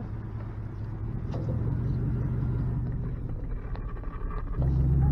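Pickup truck engine and road rumble heard from inside the cab while driving. The low drone gets louder and deeper about four and a half seconds in, as the truck pulls harder.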